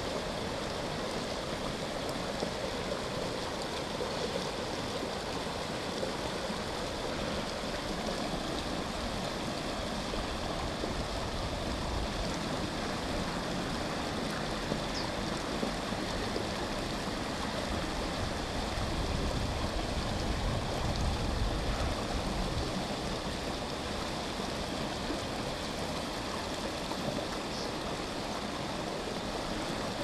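River water pouring and splashing over a small concrete step in the stream, a steady rushing noise. The low rumble swells a little about two-thirds of the way through.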